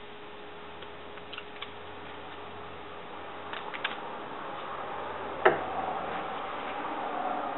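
Cloth pads rustling as they are folded and wrapped around a short steel bar, with a few light clicks and one sharp knock on the wooden table about five and a half seconds in.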